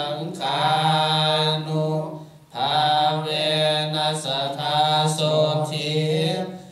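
Buddhist chanting: a male voice held on a steady low monotone, with one short break about two and a half seconds in.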